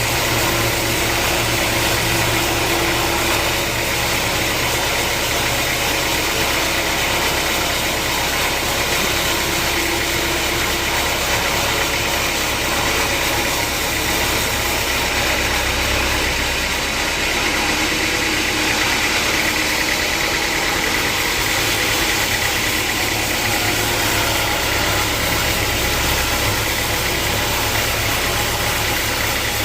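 Sawmill machinery running steadily, a continuous mechanical drone with a low hum.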